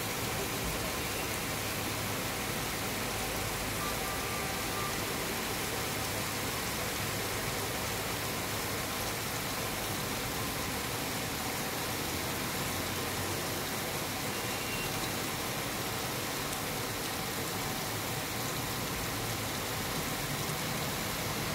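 Heavy rain falling steadily, an even hiss, with an SUV driving slowly through the standing water of a flooded car park.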